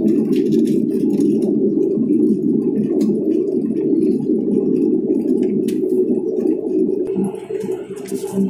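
Turboprop airliner's engines and propellers heard from inside the cabin beside the propeller during the landing roll: a loud, steady drone with a held hum, easing off about seven seconds in.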